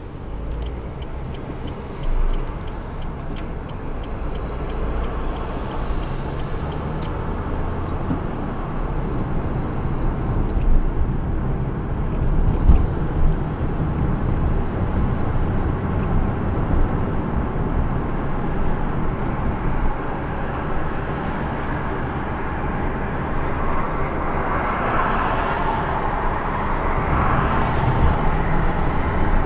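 Car on the move, with steady engine and road noise heard from the car. A light regular ticking sounds for the first few seconds, and the noise swells for a few seconds near the end.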